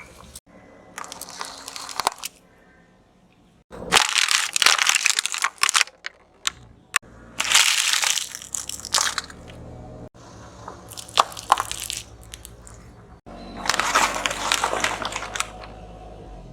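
Brittle objects crunching and cracking as a car tyre rolls over and crushes them, in about five separate crackling bursts of one to two seconds each.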